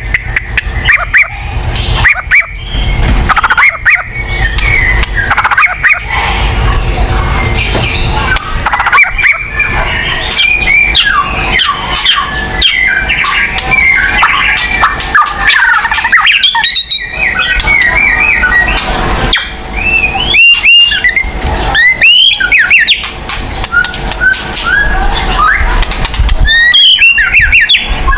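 White-rumped shama (murai batu) singing loudly and without a break: a rapid, varied stream of whistles, sweeping notes, chatter and sharp squawky calls, over a steady low hum. This is a lure song played to set other shamas singing.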